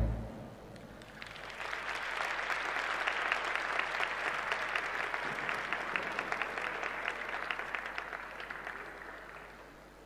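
Audience applause after the routine music cuts off: many hands clapping, rising about a second in, holding, then fading away near the end.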